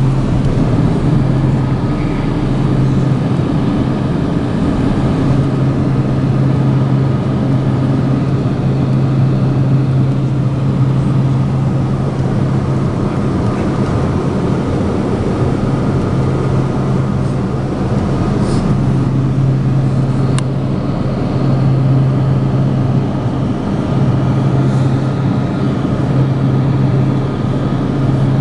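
Cessna Conquest's twin turboprop engines and propellers droning steadily in flight, heard from inside the cabin, with a strong deep hum that holds one pitch over a dense rushing noise.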